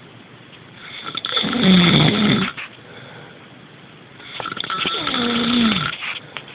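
A person snoring: two long, loud snores about three seconds apart, the second ending in a falling tone.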